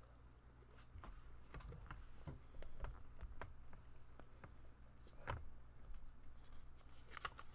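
Faint scattered clicks and light rustling from a hard plastic CGC graded-comic slab being handled while a sticky note is peeled off its grade label, with one sharper click about five seconds in.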